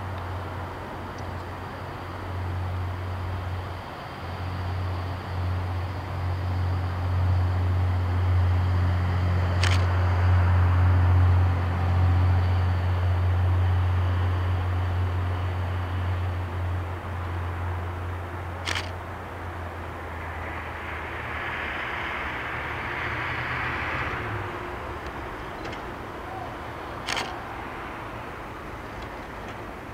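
A large engine running with a deep steady hum, swelling to its loudest about ten seconds in and dropping away after about twenty-four seconds. There are three sharp clicks, about nine seconds apart.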